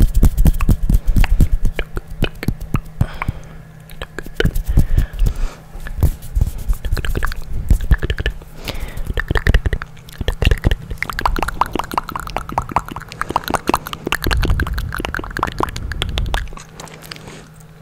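Close-miked ASMR hand sounds and mouth sounds: dense, quick clicks, crackles and rustles right at a condenser microphone, with deep rumbles near the start and again near the end.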